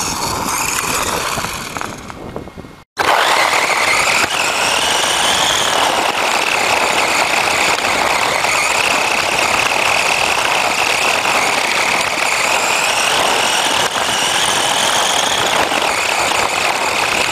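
Electric motor and gear whine of a vintage Marui Samurai RC car, picked up by a camera mounted on the car, its pitch slowly rising and falling with speed over a constant rushing rattle. The whine starts abruptly after a brief dropout about three seconds in.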